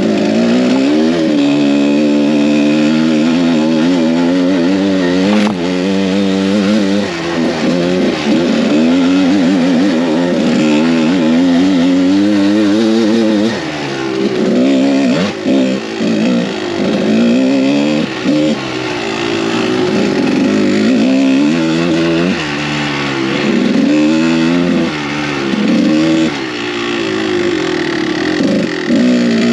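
Kawasaki KDX200 two-stroke single-cylinder dirt bike engine being ridden, revving up and down over and over, its pitch rising and falling every second or two, with a few brief drops in throttle around the middle.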